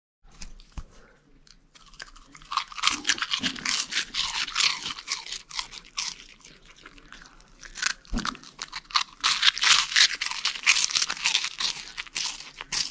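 Pomsky puppy chewing crunchy Cheetos Paws cheese puffs close up: a quick run of crisp crunches that starts a couple of seconds in, eases off briefly about halfway, then picks up again.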